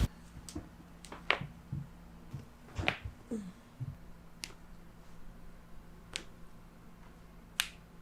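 Faint, sharp clicks and taps, about six of them spaced irregularly, over a faint steady hum in a quiet small room.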